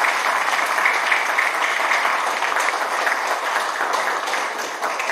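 Applause from a small seated audience, many hands clapping steadily, easing off slightly near the end.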